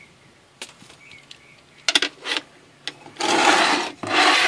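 Handling noise around an opened car amplifier on a bench: a few light clicks and knocks, then two loud rasping noises near the end, the first lasting almost a second and the second shorter.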